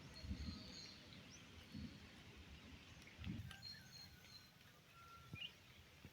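Faint birds chirping in the background, with a few soft low thumps.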